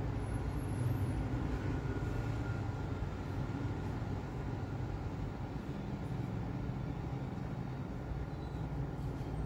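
Steady low rumbling background noise with no speech, even throughout.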